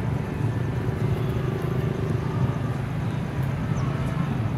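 Steady low rumble of outdoor background noise, with a few faint high chirps near the end.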